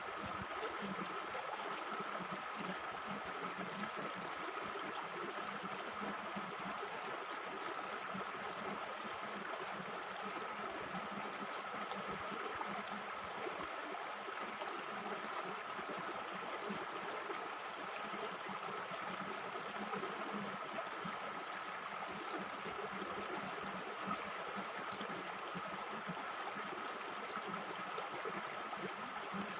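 Waterfall: a steady rush of falling water that stays even throughout.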